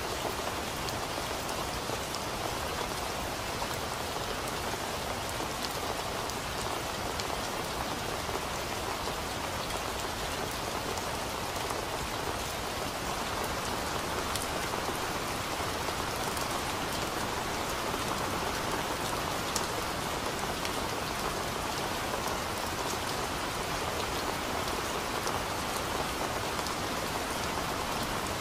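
Steady rain falling on tree leaves: an even hiss with scattered individual drops ticking through it.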